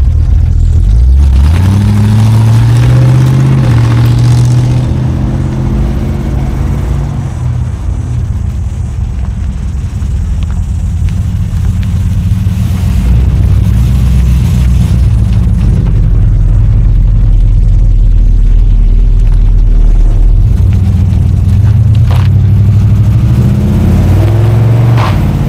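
Classic American V8 cars rolling out, with a deep engine rumble throughout. The revs rise as a car accelerates away about a second in, and again near the end.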